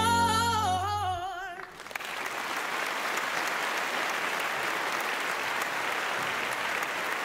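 A gospel choir ends on a held chord with a wavering lead voice, cutting off about a second and a half in. Steady applause follows for the rest of the time.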